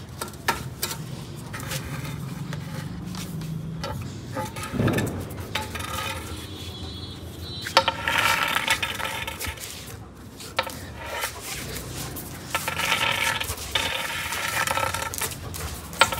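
Scattered clicks and scrapes of hard things on a concrete floor: a German shepherd playing with a thin metal pipe, its claws clicking as it moves about. In the second half a high sound with several tones comes and goes in short stretches.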